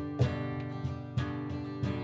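Acoustic guitar strummed in chords, an instrumental passage without singing.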